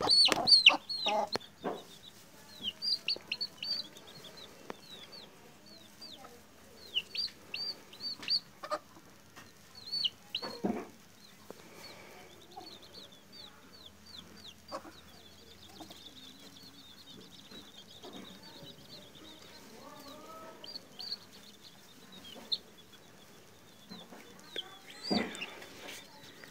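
Two-week-old chicks peeping over and over in short, high calls that slide downward, loudest and thickest in the first two seconds, then in scattered runs. A few knocks from handling come near the start, about ten seconds in and near the end.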